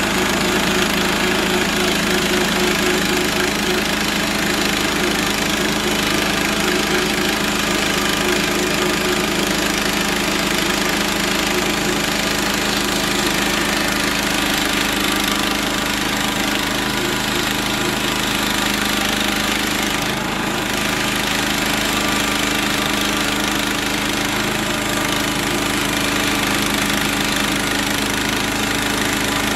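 Gasoline engine of a Central Machinery (Harbor Freight) portable bandsaw mill running steadily, with a brief dip in the sound about twenty seconds in.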